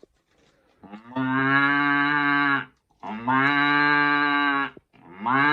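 A man imitating a cow's moo with his voice: two long, steady moos, and a third beginning near the end.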